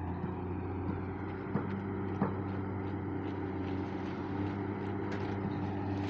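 Steady drone of a heavy diesel engine, the concrete pump driving ready-mix concrete through the steel delivery pipeline, with a few light clicks and knocks over it.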